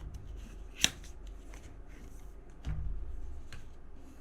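Apple Watch cardboard box being opened and its packaging handled: light paper-and-card rustling and scraping, with one sharp click about a second in.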